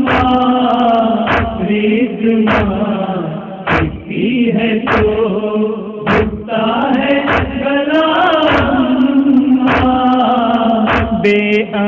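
Male voices chanting an Urdu noha lament in long, held notes, with a sharp chest-beating (matam) slap about every 1.2 seconds keeping the beat.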